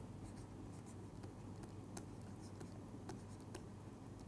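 Faint scratching and light irregular ticks of a stylus writing on a pen tablet, over a low steady hum.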